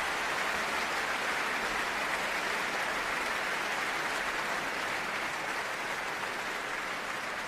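Concert audience applauding after a performance: a dense, steady clatter of many hands clapping, easing off slightly near the end.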